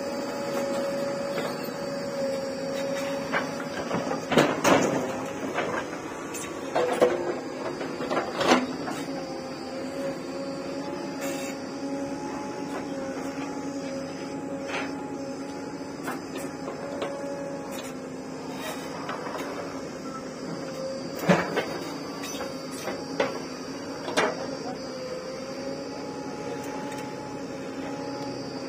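JCB 3DX backhoe loader working, its diesel engine running at a steady pitch, with several sharp knocks and clanks from the bucket and linkage as it digs and dumps soil. The loudest knocks come about four to eight seconds in and again about two-thirds of the way through.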